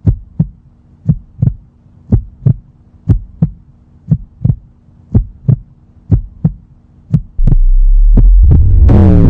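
Heartbeat sound effect: paired low thumps about once a second over a faint steady hum. About three-quarters of the way through, a loud low drone cuts in, and near the end a falling sweep joins it.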